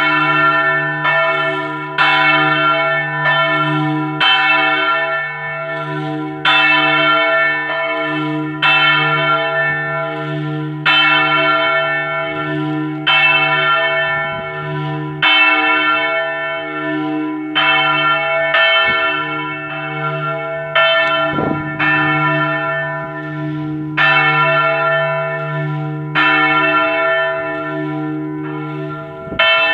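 A single large church bell, cast by Marinelli in 1876 and tuned to a sharp Mi3, rung a distesa: swinging full circle with its clapper striking about once a second, strokes alternating louder and softer over a sustained deep hum. It is the festive ringing of the tower's major bell alone.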